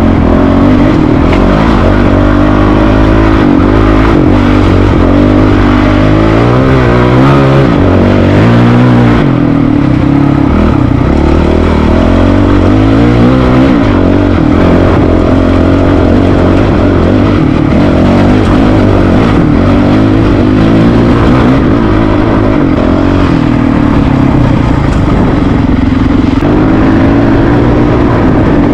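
Honda CRF450RL's single-cylinder four-stroke engine under way, revving up and down through the gears with the note rising and falling again and again in the first half, then running at a steadier speed.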